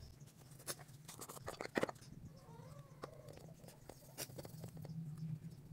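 Handling a plastic jar of polishing paste and rubbing the paste by hand over a steel cleaver blade: a few small sharp clicks and knocks, loudest a little under two seconds in, then faint rubbing.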